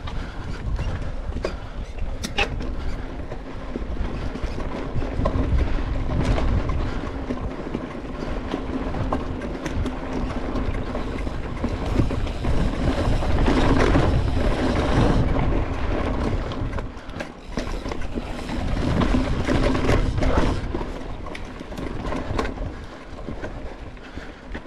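Mountain bike riding down a rough dirt and gravel trail: tyres crunching over the ground and the bike rattling over bumps, with constant small knocks, loudest around the middle.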